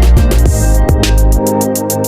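Background music with a fast, even beat of sharp hi-hat ticks over held synth tones, and a deep bass that drops out about one and a half seconds in.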